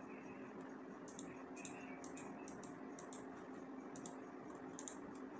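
A few faint, scattered clicks from a computer mouse and keyboard over a steady low hum.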